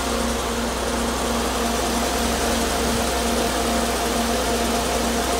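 Mercedes 300E's M103 straight-six engine idling steadily, with the electric auxiliary cooling fans running at high speed under a manual switch that bypasses the faulty high-speed fan circuit.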